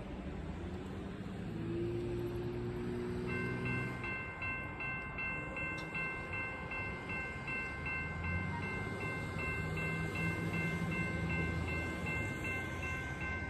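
Railroad grade-crossing warning bell starts about three seconds in and rings on in a steady, rapid, even pattern: the crossing has activated and its gates are lowering for an approaching train. A low train horn sounds faintly twice, once around the start of the bell and again a few seconds later.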